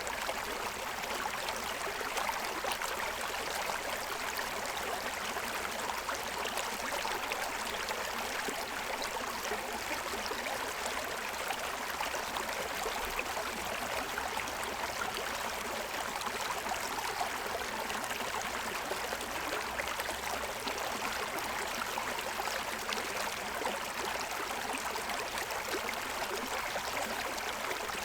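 Forest stream running over the stones of its bed: a steady, even rush of water with fine splashing and gurgling.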